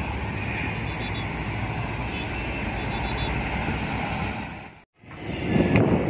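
Steady rumble of heavy road traffic, large diesel buses and trucks running through a junction. Just before five seconds the sound cuts out completely for an instant, then a louder swell of heavy diesel engine noise comes in as a bus pulls past close by.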